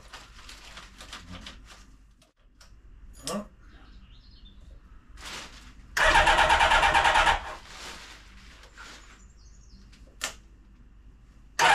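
Kawasaki GPZ600R's inline-four engine being cranked on the electric starter in two bursts of about a second and a half, the second near the end. It turns over but does not fire: the bike has stood unused for months and its battery has only a bit of life left.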